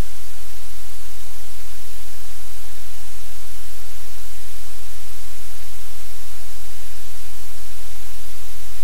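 Steady, loud static hiss with a constant low hum underneath, unchanging throughout, with no distinct events.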